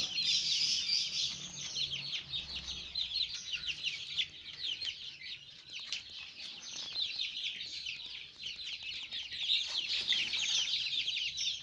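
A flock of 19-day-old Joper (ayam kampung super) chicks peeping continuously, many short, high chirps overlapping.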